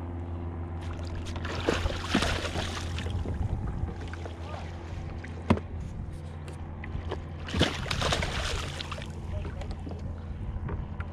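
Water splashing and sloshing beside a kayak as a hooked snapper thrashes at the surface and is netted, loudest about two seconds in and again around eight seconds, with a couple of sharp knocks, over a steady low hum.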